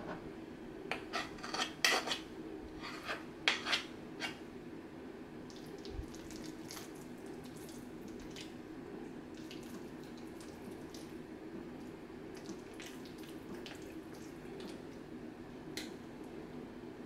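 Wooden spoon and fork knocking and scraping against a plastic mixing bowl while stirring chicken salad: a quick run of sharp clicks in the first few seconds, then only scattered faint taps over a steady low hum.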